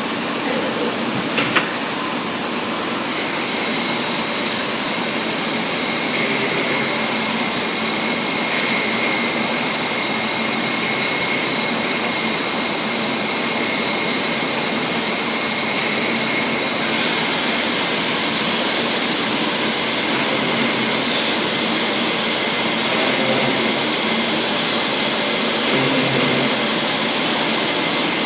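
Weeke BP CNC machining centre running: a steady rushing noise with a high whine. The whine shifts a few seconds in and again about halfway through, with a couple of brief clicks near the start.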